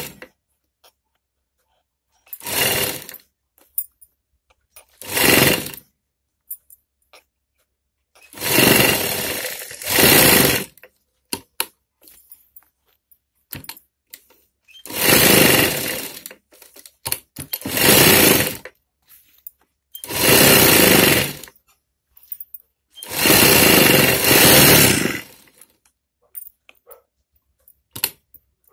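Sewing machine stitching a seam in short runs: about seven starts and stops of one to two and a half seconds each. Between the runs there are short pauses with faint clicks.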